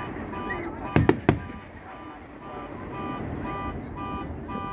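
A car horn honks over and over in a steady rhythm, about two honks a second. Three sharp firework bangs go off in quick succession about a second in.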